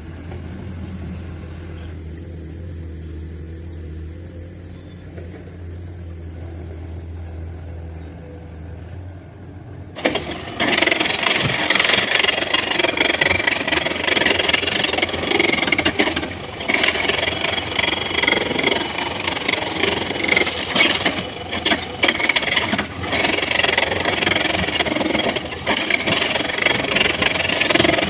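A heavy diesel engine runs low and steady. About ten seconds in, a loud, continuous scraping and clattering begins: rock being loaded by an excavator into a dump truck.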